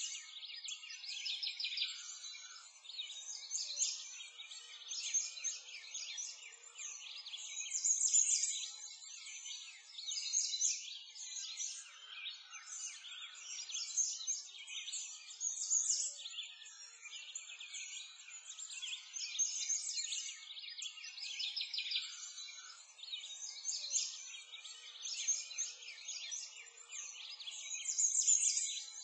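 Continuous chorus of many small songbirds chirping and trilling, all high-pitched, with no low sounds beneath, swelling and fading every second or two.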